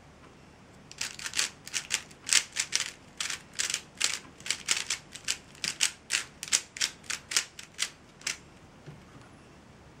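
Dayan Zhanchi 3x3 speedcube being turned fast, its plastic layers clacking about four times a second for some seven seconds as it is scrambled for the next solve.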